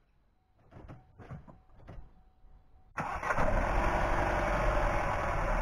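A few faint clicks, then about three seconds in the Opel Mokka's Ecotec engine starts and runs steadily.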